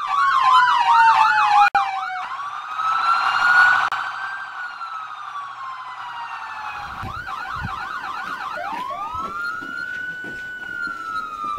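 Police siren switching between a fast yelp and a slow wail: yelping for the first two seconds, then a long rising-and-falling wail, a short yelp again about seven seconds in, and another wail that rises and slowly falls.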